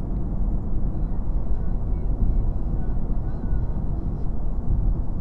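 Steady road and engine noise inside a car's cabin while it cruises at highway speed, as picked up by the dashcam microphone.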